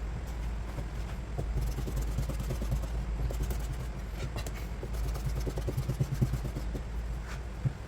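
Knife clicking and scraping on a cutting board, in many small irregular strokes, over a steady low hum.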